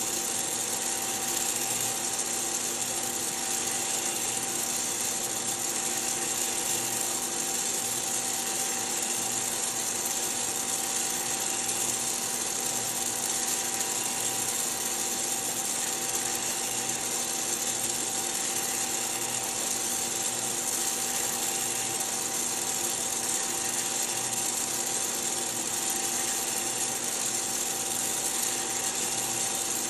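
Hottop coffee roaster in its cooling cycle: the cooling fan and the tray's stirring-arm motor run steadily, a constant motor hum over a hiss of moving air, as the just-roasted beans are stirred in the cooling tray.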